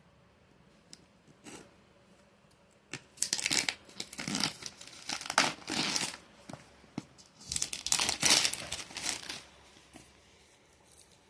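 Packaging of a phone's retail box being torn and crinkled as it is opened: a few light clicks, then several rough tearing bursts over about six seconds. The packing is sturdy and slow to get open.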